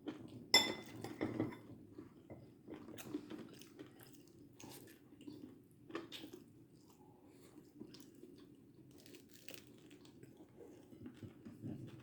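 Faint chewing and crunching of food, with scattered small clicks and crackles, a few louder ones about a second in.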